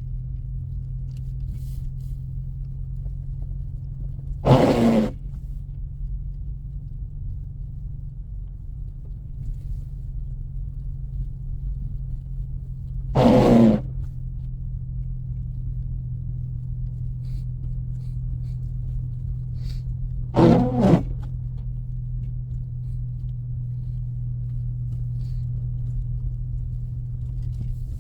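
Steady low drone of a 2024 Mustang EcoBoost's turbocharged four-cylinder engine and tyres, heard inside the cabin while driving slowly through deep snow. Four short, loud sounds break in at a regular interval of about eight seconds; the third one is doubled.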